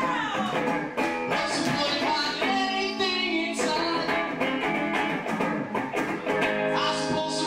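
Electric guitar played live, with a man singing over it.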